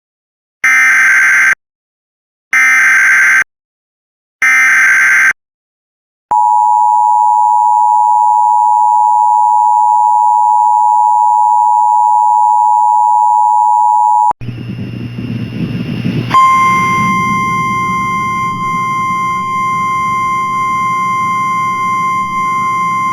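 Emergency Alert System signals opening a tornado warning. First come three short bursts of warbling SAME header data, about two seconds apart. Then the two-tone attention signal sounds as one steady note for about eight seconds. After it cuts off there is a burst of noisy static, then a steady tone near 1 kHz over a low hum.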